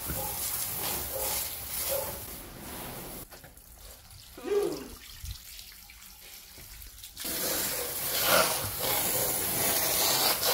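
Water from a garden hose spraying against a car's sill and underbody. The spray drops away about three seconds in and comes back about seven seconds in.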